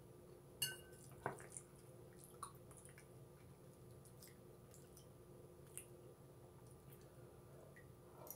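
Quiet wet chewing and mouth sounds of someone eating chicken noodle soup, with a few sharp clicks, the loudest about half a second and a second in, that fit a metal spoon touching the bowl or teeth.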